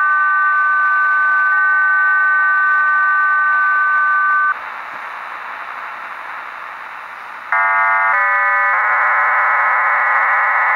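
Shortwave radio reception of the Cuban HM01 numbers station. Two steady tones are held for about four and a half seconds, then there are a few seconds of plain static hiss, then a dense multi-tone digital data signal starts about seven and a half seconds in and changes its tone pattern twice within its first second or so.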